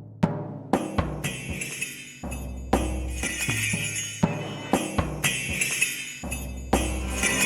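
Ritual-style percussion music: deep drum hits in a steady rhythm, about two strikes a second, with a jingling metal percussion layer coming in about a second in.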